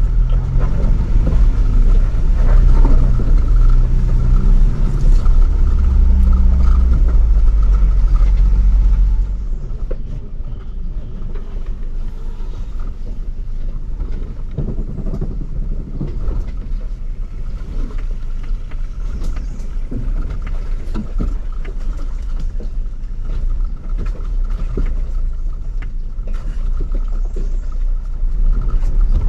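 Ford Bronco's engine and drivetrain running at crawling speed on a rough off-road trail, with scattered knocks from the vehicle working over the uneven ground. The engine is louder for the first nine seconds or so, then settles to a quieter, steadier run, and picks up again near the end.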